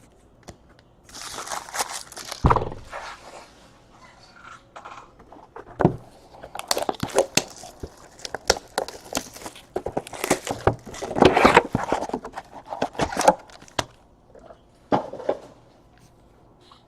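A foil trading-card pack being torn open and crinkled, with the wrapper and cards handled in bursts of rustling and scattered clicks, and a dull knock a couple of seconds in.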